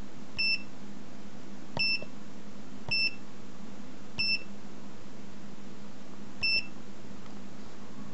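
Digital multimeter beeping as its range button is pressed: five short, single-pitch beeps, each starting with a click of the button, at uneven gaps over a steady low hum.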